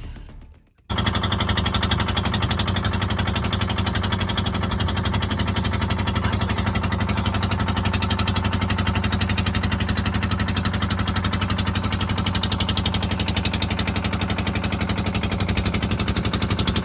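Boat engine running steadily at constant speed, with a fast, even pulsing; it cuts in suddenly about a second in.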